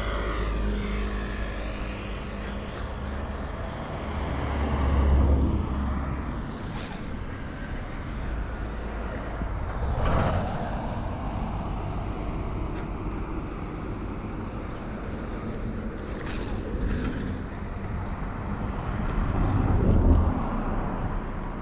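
Road vehicles passing, each one swelling and fading, three times, over a steady low rumble.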